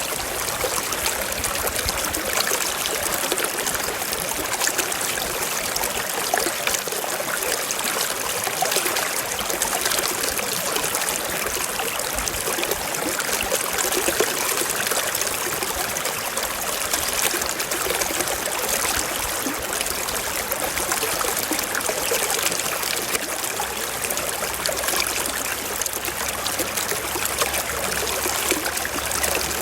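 Waterfall: falling water rushing and splashing in a steady, even wash of noise that does not change.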